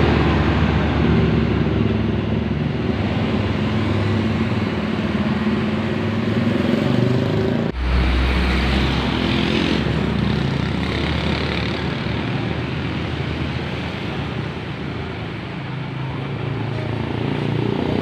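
A large coach's diesel engine running as the bus moves off, a steady low drone. After an abrupt cut about eight seconds in, street traffic takes over: motorcycles and passing buses.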